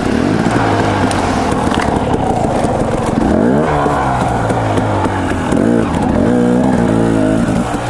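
Dirt bike engine running at low revs while crawling through brush, revved up about three and a half seconds in, then blipped unevenly for a couple of seconds near the end as the rider works the throttle over obstacles.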